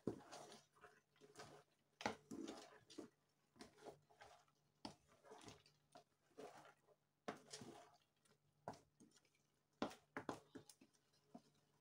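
A long spoon stirring a big pot of thick, leafy afang soup: irregular wet squelching strokes, with a few sharp knocks of the spoon against the metal pot.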